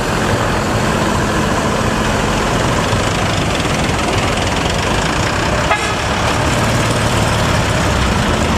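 Front-engined Hino diesel bus running loud and steady through a modified 'ngorok' exhaust, a growling, snoring roar, with one brief sharper sound about six seconds in.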